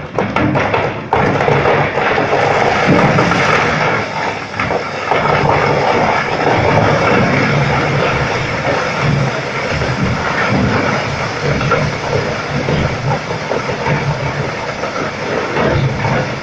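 Loud, steady mechanical noise with an uneven low pulsing underneath.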